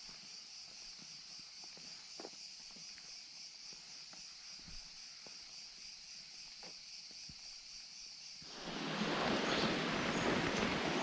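A steady high-pitched insect chorus in the forest, with a few faint clicks. About eight and a half seconds in, a much louder even hiss of rain suddenly takes over.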